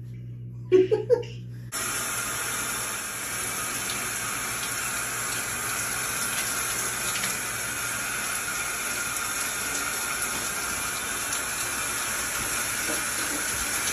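Shower running: water spraying from the shower head in a steady hiss that starts abruptly about two seconds in. Just before it there are two short loud sounds.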